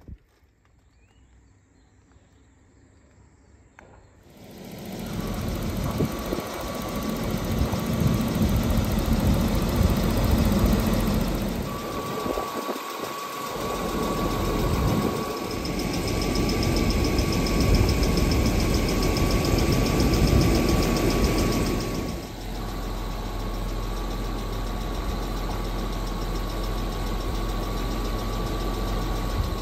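Jaguar 4.2-litre straight-six engine idling steadily under the open bonnet. It comes in about four seconds in, after a quiet start.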